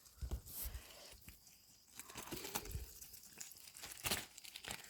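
Ducks eating lettuce: bills tearing and snapping at crisp leaves in irregular crunches and rips.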